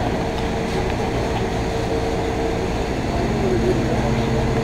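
Fire truck engine running steadily, a constant drone with several fixed pitches.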